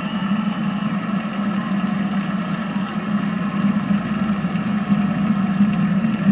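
Stadium crowd cheering and applauding with a steady, unbroken noise, heard from a television's speaker.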